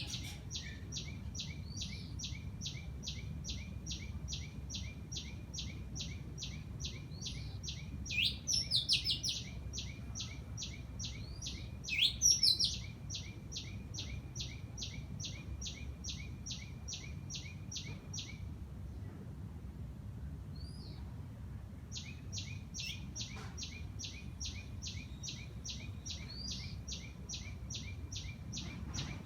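Birds calling in a garden: a long, even series of high chirps, several a second, breaks off about two-thirds of the way through and resumes a few seconds later. Louder bursts of calls come twice in the first half, over a steady low background rumble.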